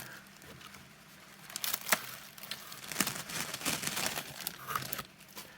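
Plastic parts bag crinkling and rustling as it is handled, in irregular crackles, starting after about a second and dying down near the end.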